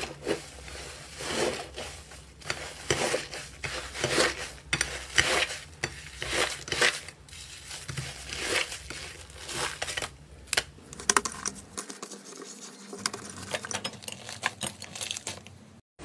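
Hands kneading and squeezing a fluffy, crumbly pink slime, making irregular crackling, squishing sounds as it is pressed and torn apart.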